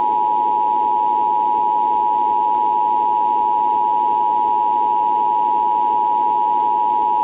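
Emergency Alert System attention signal: a loud, steady electronic alert tone of two close pitches sounding together, held without a break over a constant hiss of static.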